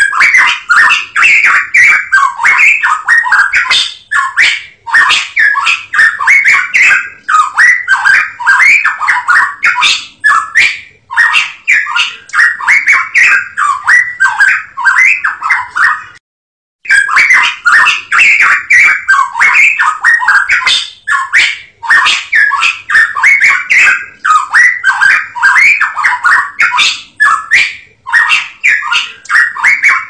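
A cucak emas Papua songbird singing a fast, continuous run of squeaky, chattering notes, with one short break about sixteen seconds in.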